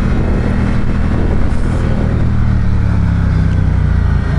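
Ducati Diavel 1260's Testastretta V-twin engine running steadily while the motorcycle cruises at town speed, with wind and road noise over it.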